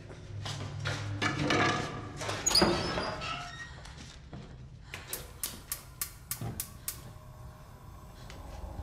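Creaking and rustling, with a loud high squeak about two and a half seconds in, then a quick run of about ten sharp clicks over two seconds.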